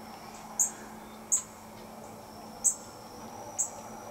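Evening field ambience: short, high-pitched chirps of calling wildlife, five in a row spaced irregularly about a second apart, over a faint steady high hum.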